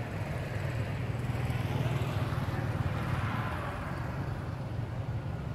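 Steady low rumble of road traffic, swelling a little a couple of seconds in.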